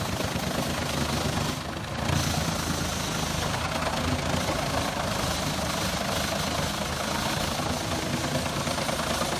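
Heavy forestry machine's engine running steadily under load, dipping briefly about two seconds in.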